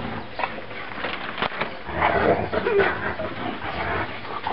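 Three-week-old puppies nursing and jostling against their mother, making small whimpering sounds among shuffling noises that grow busier about halfway through.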